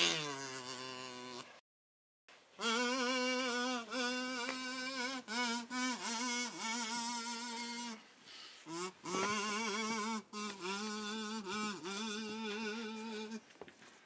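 A slow melody sung or hummed in long, held notes with a steady vibrato, stepping from note to note. It cuts out to silence for about half a second near the start.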